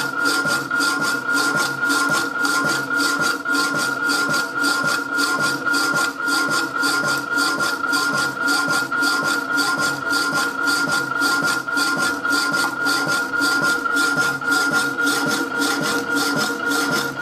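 Rapidor power hacksaw cutting a rusty flat steel bar: the blade rasps through the metal in an even, steady rhythm of strokes, over a constant high tone from the machine.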